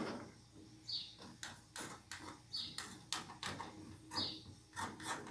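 Metal spoon clicking and scraping against a nonstick frying pan as a tapioca-and-egg crepe sets. A short high chirp repeats about every second and a half to two seconds.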